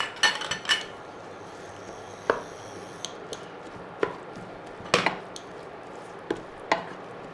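Irregular sharp knocks of a cooking utensil, a quick cluster at first and then single strikes every half-second or so, while a green chilli is added and the egg-and-cabbage stir-fry is worked in the pan.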